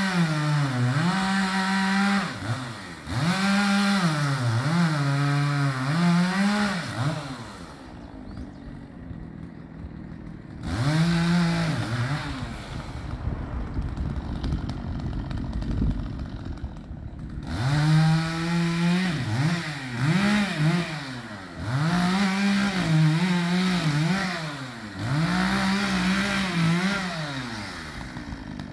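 Chainsaw revving up and down in short repeated bursts while cutting up the limbs of a fallen tree, dropping back to a lower idle twice for a few seconds each in the middle.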